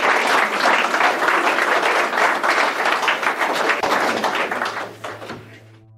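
An audience applauding, a room full of people clapping, which fades out about five seconds in. Just before the end a low steady musical drone begins.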